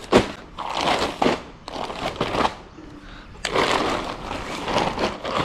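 Fabric of a Decathlon two-person tent rustling and crinkling as it is unfolded and spread out by hand, in several irregular bursts.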